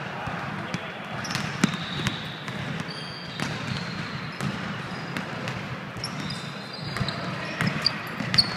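A basketball bouncing on a hardwood gym court, with sneakers squeaking as players run and cut. Sharp bounces come at irregular intervals, the loudest near the end, over the busy echo of the large hall.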